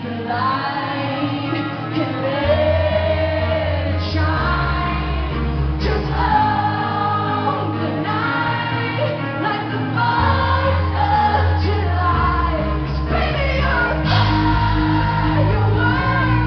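Female pop vocalist singing live into a microphone over a band backing, with bass notes that shift every couple of seconds.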